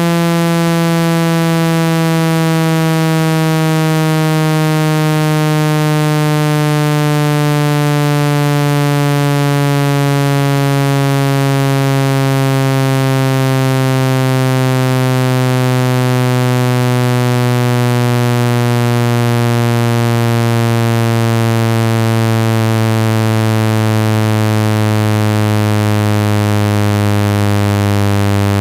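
Loud, steady synthetic buzzing tone, rich in overtones, gliding slowly down in pitch. It is a speaker-cleaning frequency tone, meant to be played at full volume to shake water and dust out of a phone's speaker.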